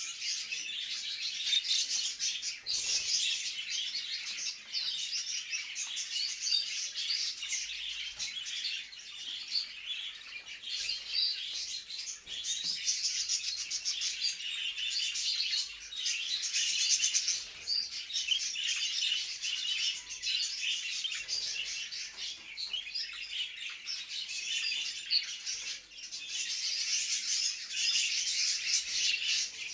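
Several budgerigars chattering and warbling without pause, a fast, high twittering with brief lulls. It is the mating chatter of budgies kept in breeding cages.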